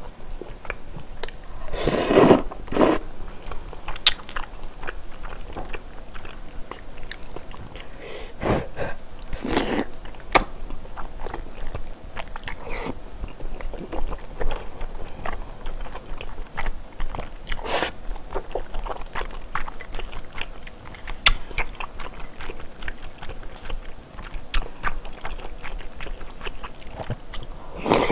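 A person eating hot spicy noodle soup, close-miked: wet chewing and small mouth clicks throughout, broken by several short, louder slurps of noodles.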